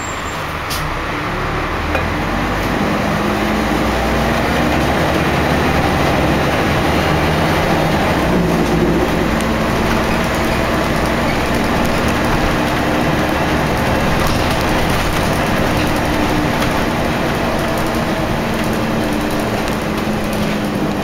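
Cabin noise of a Scania L113CRL single-deck bus under way: its rear-mounted 11-litre six-cylinder diesel engine running, along with road and body noise. The sound gets louder about two seconds in and then holds steady.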